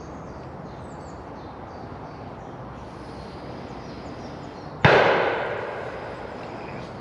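Parachute canopy of a shelter snapping in a gust of wind: one sudden loud crack almost five seconds in that dies away over about a second, over faint birdsong.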